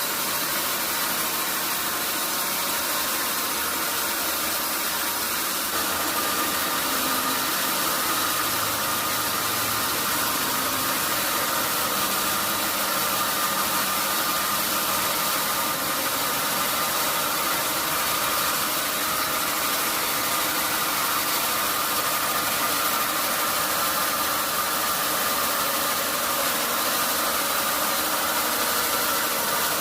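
Sawmill sawing machine running steadily, a continuous noisy machine hum that grows slightly louder about six seconds in.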